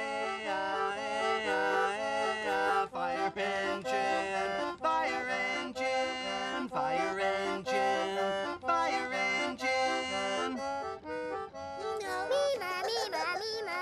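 Instrumental music led by an accordion, playing rhythmic changing chords. It breaks off about ten and a half seconds in, and warbling, wavering pitched sounds follow near the end.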